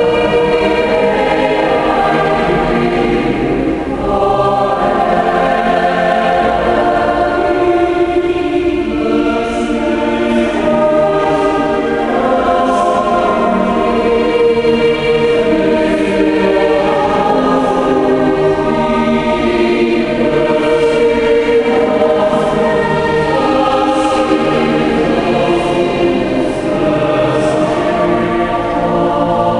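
Church choir singing a hymn, many voices holding long sustained notes without a break.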